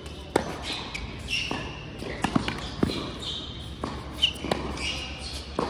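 Tennis rally on an indoor hard court: a string of sharp knocks as the ball is struck by the rackets and bounces on the court, with short high squeaks of shoes on the court surface between them.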